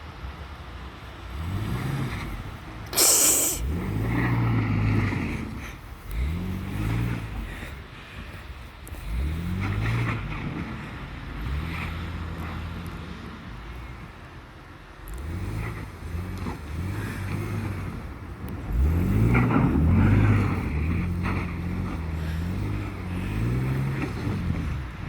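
Mercedes-Benz car engine revving up and easing off again and again, about eight rises in pitch, with a short sharp hiss about three seconds in.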